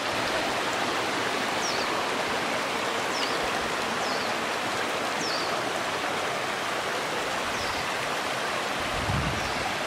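Shallow rocky stream running over and between stones, a steady even rush of water.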